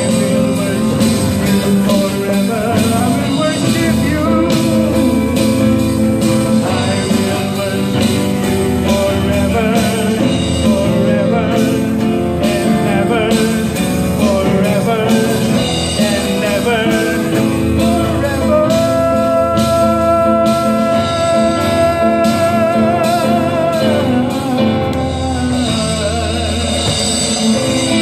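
Live band: a man singing into a microphone, backed by acoustic guitar and keyboard. About two-thirds of the way through he holds one long note with vibrato for several seconds.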